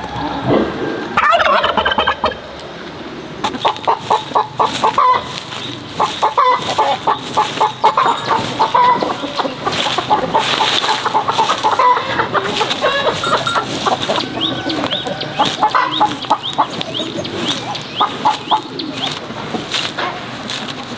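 Chickens calling repeatedly: a drawn-out call about a second in, then many rapid pulsing clucks, over the scratchy strokes of a soft grass broom sweeping a packed dirt yard.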